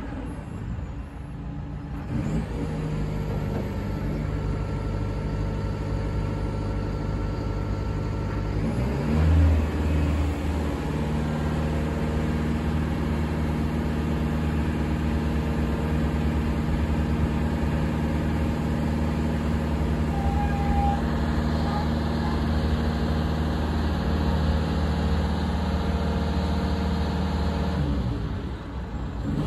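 Magni RTH5-23 rotating telehandler's diesel engine running. About nine seconds in it revs up, then holds a steady higher speed until near the end, when it drops back.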